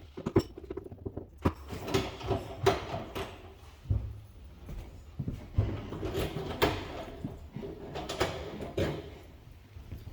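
Irregular clicks, knocks and rustling of small objects being handled.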